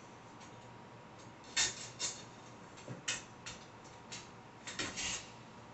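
Light, irregular clicks and clinks of metal dish-rack rods and small parts being handled and fitted together by hand, several over a few seconds.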